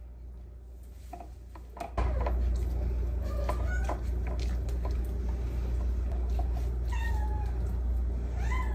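A cat meowing a few times in short calls that rise and fall in pitch, over a steady low hum that starts about two seconds in.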